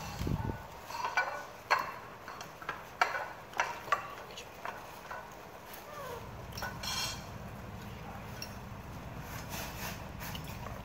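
A metal fork clinking and scraping against a plate and a stainless-steel pot: a run of sharp clinks in the first four seconds, then softer stirring of cooked instant noodles in the pot near the end, over a low hum.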